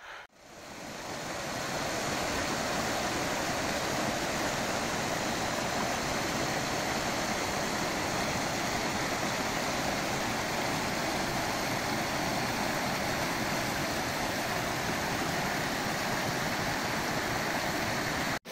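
Mountain stream rushing steadily close by, an even wash of running water that fades in over the first couple of seconds and cuts out briefly just before the end.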